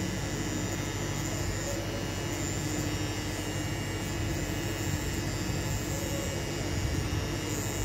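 Pen-style rotary tattoo machine running with a steady hum as it inks lettering into skin.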